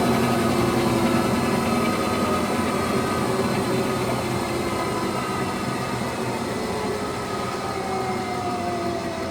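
Electrolux Wascator W355H commercial washing machine slowing down from a spin: a motor whine of several tones that fall slowly in pitch as the level gradually eases off.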